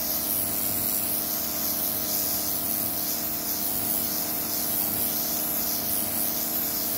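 Ryobi AJP1610 electric pressure washer running at full pressure through its rotating turbo ('tornado') nozzle, blasting water onto a concrete floor to strip algae. A steady hiss of spray over the constant hum of the pump motor.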